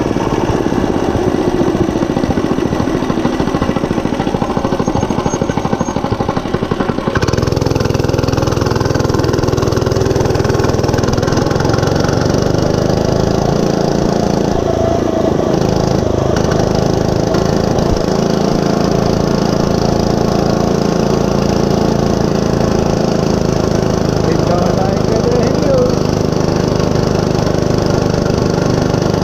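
Monster Moto 105 mini bike's small single-cylinder four-stroke engine running on the move. About seven seconds in, the note changes from a rough pulsing to a steadier, fuller engine sound that holds for the rest of the time.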